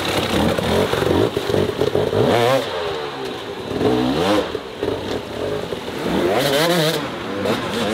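Dirt bike engine revving in short bursts, its pitch rising and falling several times as the throttle is blipped over rocky ground.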